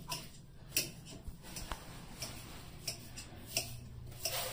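A few scattered light clicks and taps, irregularly spaced, over a low steady hum that firms up about three and a half seconds in.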